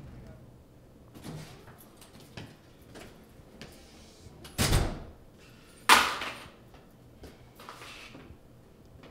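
An interior door being opened and shut, with light steps and knocks. There is a heavy thud near five seconds in, and the loudest sound is a sharp bang about six seconds in.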